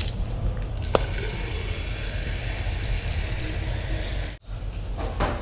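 A plastic cola bottle's cap clicks open, then a steady fizzing hiss runs for about four seconds as the carbonated cola is poured into a glass, cutting off suddenly a little after four seconds.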